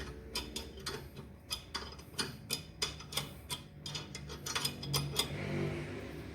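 Sharp metal clicks, about three a second, as a wrench is worked in short strokes to screw a small bolt into the rear brake drum's threaded hole, forcing the drum off the hub. A steady hiss and low hum come in over the last second and a half.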